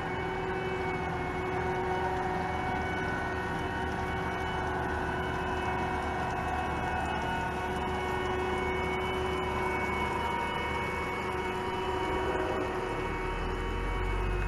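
Caterpillar AP655 asphalt paver running steadily: a diesel engine and hydraulic drone with several steady whining tones over it. A deeper low rumble joins near the end.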